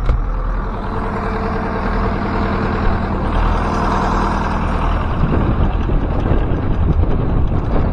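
Zetor 7011 tractor's diesel engine running steadily; from about five seconds in the sound turns rougher and more uneven, with wind buffeting the microphone.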